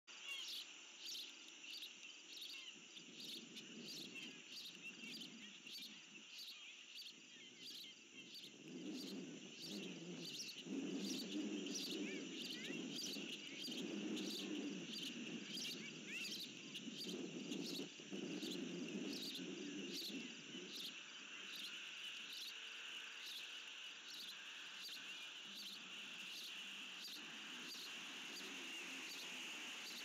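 Insects chirping steadily in an even rhythm of about two to three chirps a second over a constant high drone. A low rushing noise, like wind on the microphone, swells up about a third of the way in and eases off later.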